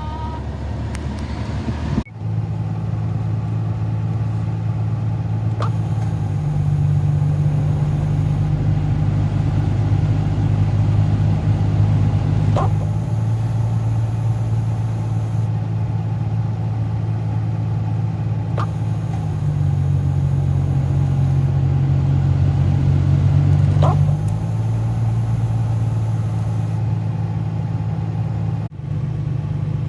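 Nissan Skyline GT-R R32's RB26DETT twin-turbo straight-six idling with the air conditioning on. About every six seconds there is a short click and squeak, and the idle tone steps up or down. This is the odd noise that turned out to come from the air conditioning.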